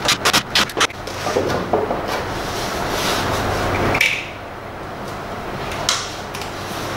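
Cordless drill driving screws into a wall-mounted cabinet: a burst of rapid clicking, then the motor runs steadily and stops about four seconds in.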